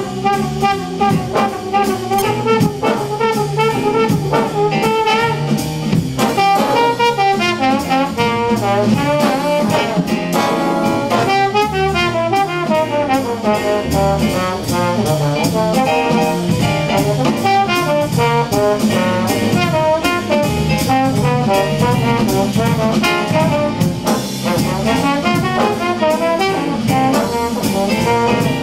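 Slide trombone taking a jazz solo of quick, winding runs over a rhythm section with stepping bass notes and drums.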